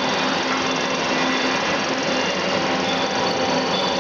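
Rice processing machine running steadily: a dense, even mechanical noise with a steady low hum.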